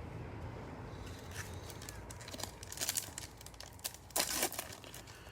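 Wrapper of a trading-card pack crinkling and tearing as it is opened by hand, in short irregular crackles that start about a second in and are loudest just after four seconds.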